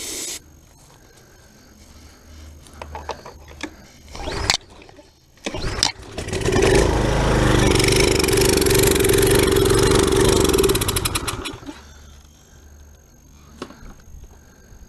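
Briggs & Stratton small engine on a pressure washer. A short hiss of starter fluid is sprayed at the very start, then there are two pulls on the recoil starter cord. About six seconds in the engine fires and runs for about five seconds, then dies out; it runs only on the starter fluid, with old gasoline still in the tank.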